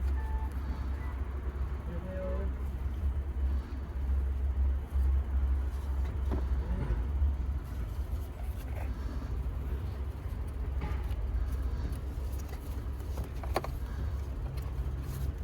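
Car engine running with a steady low rumble, with a few faint irregular clicks over it.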